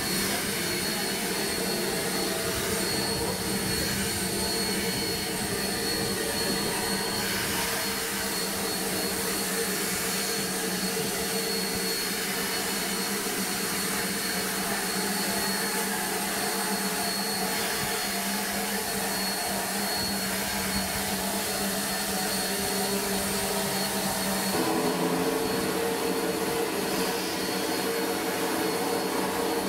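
Baldwin 2-8-0 S160 steam locomotive hissing steam steadily, with a constant thin high whine over the hiss. It grows a little louder and fuller about four-fifths of the way through.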